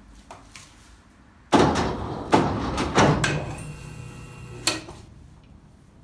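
Heavy clanks and knocks as granite blocks are rigged under a chain hoist: two faint clicks, then loud hits about a second and a half in, again at about two and a quarter seconds, and twice around three seconds. A short metallic ringing tone follows and ends with one last sharp knock.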